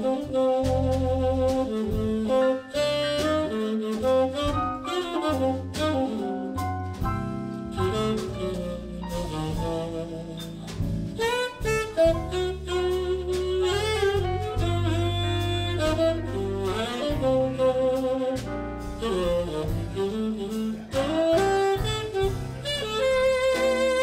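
Live blues band playing an instrumental solo break in a slow blues. A lead instrument plays bending melodic lines over a walking bass line and drums.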